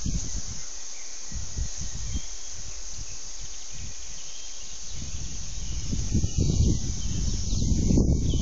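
Wind buffeting the phone's microphone in uneven low gusts, heaviest in the last couple of seconds, over a steady high hiss of outdoor background.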